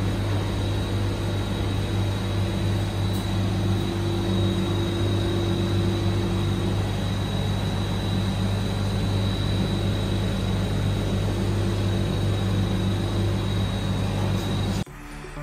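Refrigerated gelato display cabinet's cooling unit running with a steady low hum and a thin high whine. It cuts off suddenly near the end.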